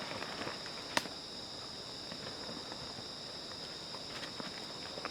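Steady, high-pitched insect chorus, with one sharp knock about a second in and light scattered ticks.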